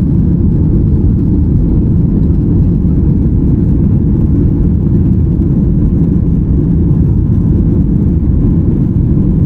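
Steady low rumble of an airliner cabin: engine and airflow noise, even and unbroken.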